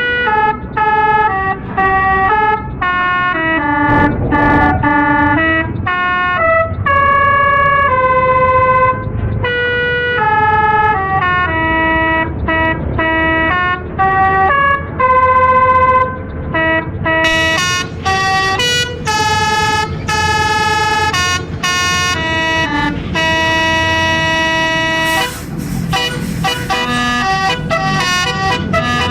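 A bus's basuri telolet horn playing a tune: a run of held horn notes stepping up and down in pitch, some short and some held about a second, with brief breaks between them.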